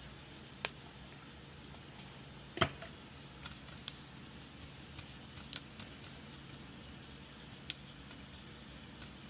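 Small clicks and taps from a tool and a circuit board being handled while the board is cleaned: about five scattered ones, the loudest about two and a half seconds in, over a faint steady hum.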